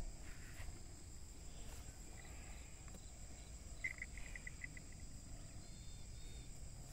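Faint field ambience: steady high insect buzz of crickets over a low rumble, with a brief rapid run of chirps about four seconds in.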